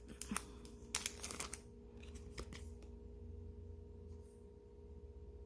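Photo cards being handled, with a few light clicks and rustles in the first second and a half, then only a faint steady hum.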